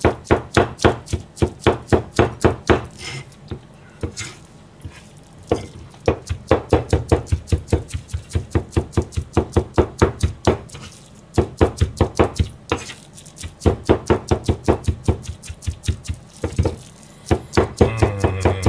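A Chinese cleaver chopping pork and chopped greens into gyoza filling on a plastic cutting board, in quick even strokes of about four a second. The runs of strokes break off for short pauses a few times.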